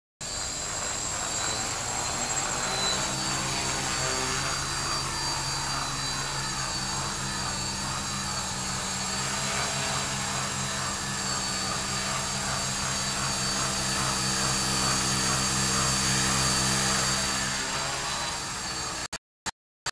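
Propellers and motors of a Vector 450 VTOL model aircraft running while it hovers: a steady buzz with high whistling tones. It stops abruptly near the end.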